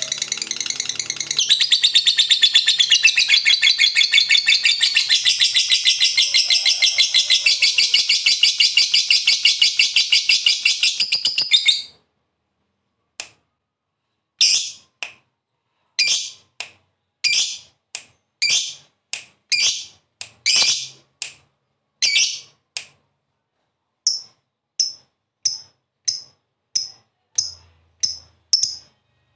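Lovebird giving a long, loud, rapid chattering trill (ngekek) that cuts off sharply about twelve seconds in. It follows with a string of short, sharp single chirps, about two a second with a few pauses.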